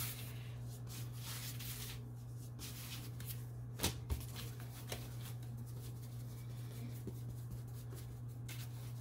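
Hands pressing and patting pizza dough on floured parchment paper: soft rustling of dough and paper, with one sharper tap a little before halfway. A steady low hum runs underneath.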